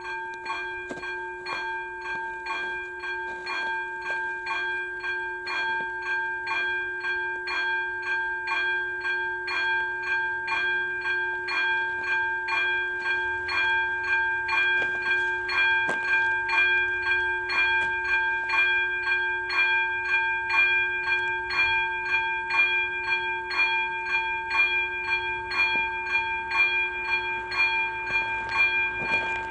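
Electronic level-crossing warning bell (ZV02 on a STARMON crossing) ringing in a steady, even rhythm of strikes that grows gradually louder, signalling that the crossing is active for an approaching train.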